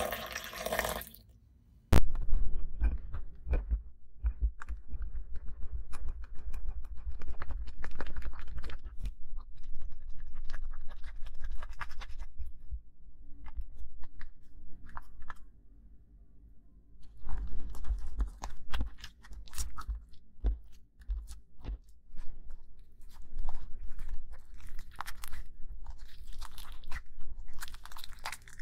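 A short pour of detergent water into a glass bowl at the very start. Then a wet, sticky slime mixture is worked in the bowl and squeezed and stretched by hand, giving dense crackling, clicking squelches with a short lull about halfway through.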